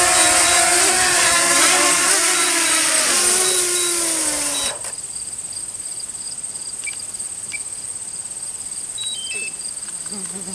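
Small quadcopter drone hovering low and setting down, its propeller whine wavering and dropping in pitch before cutting off suddenly about four and a half seconds in as the motors stop. A steady high insect chorus carries on after it.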